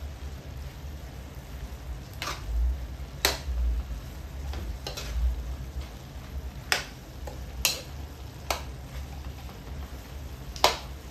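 A metal ladle stirs minced buffalo meat and diced vegetables frying in a metal wok. The food sizzles while the ladle scrapes and knocks against the pan about seven times, the last knock the loudest, over a steady low hum.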